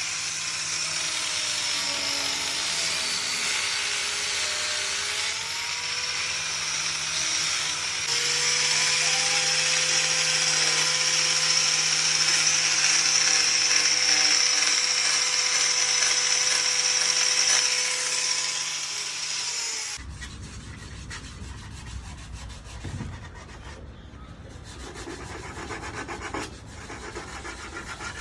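Electric grinder grinding down the wood of an old chair, a steady high whine that dips slightly under load. About two-thirds of the way in it cuts off abruptly and gives way to quieter, uneven rubbing of sandpaper worked by hand over the wood.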